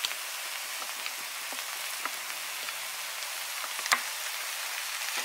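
Mussels, tomatoes and greens sizzling steadily in a hot wok. A few light ticks and one sharp click come about four seconds in.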